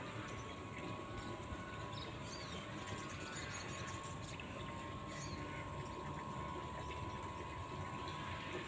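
Radio-controlled model fishing boat running at steady cruising speed, its motor giving a thin, even whine over a low hiss. A few short high bird chirps come in the first half.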